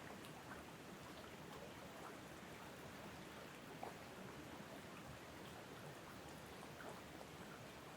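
Faint, steady rush of wind blowing through the tree tops, with a few scattered light ticks.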